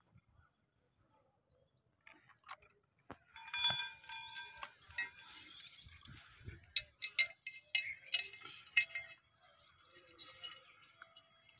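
Scattered small clicks and clinks of plastic camera-housing and mounting-bracket parts and screws being handled and fitted, starting about two seconds in. A louder pitched sound lasts about two and a half seconds near the middle.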